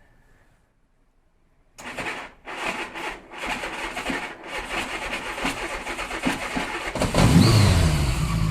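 Honda Gold Wing motorcycle's starter motor cranking the engine in uneven bursts with short breaks for about five seconds, until the engine catches about seven seconds in, revs briefly and settles into a steady idle. The owner takes the slow-sounding start for a starter that needs rebuilding or replacing.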